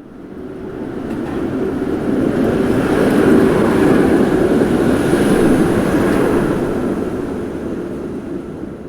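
A train passing by: its noise swells over the first few seconds, holds loudest in the middle, then dies away near the end.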